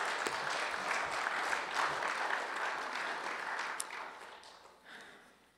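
Congregation applauding, dying away over the last second or two.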